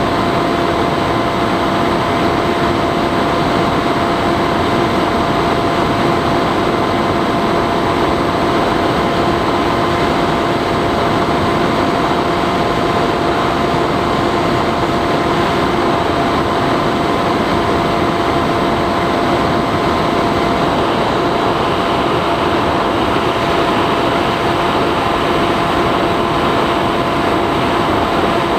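Bixler 3 model plane's electric motor and propeller whining at a steady, unchanging pitch under a constant rush of wind noise, as heard from the onboard camera in cruising flight.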